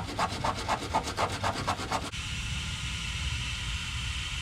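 Sandpaper rubbed back and forth by hand on a metal ground point, about four strokes a second, cleaning it for a good electrical ground. The strokes stop about two seconds in and a steady hiss follows.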